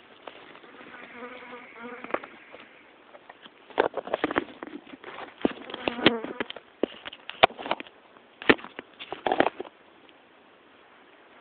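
A flying insect buzzing for a second or so, followed by a run of sharp, irregular clicks and knocks.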